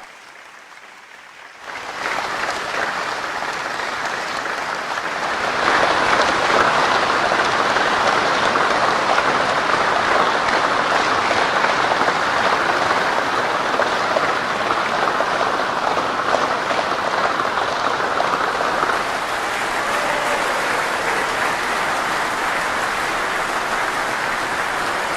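Large crowd applauding: dense, steady clapping that comes in after a brief quiet gap near the start and grows louder about five seconds in.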